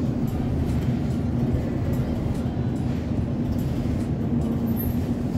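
Steady low rumble with a faint constant hum: supermarket background noise from refrigerated display cases and ventilation.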